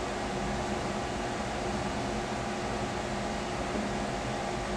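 Steady hum and hiss of a running fan, even throughout, with no distinct knocks or handling sounds standing out.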